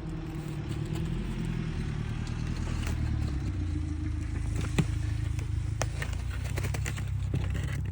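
A vehicle engine running steadily, with scattered sharp clicks and crunches over it; the strongest click comes about five seconds in.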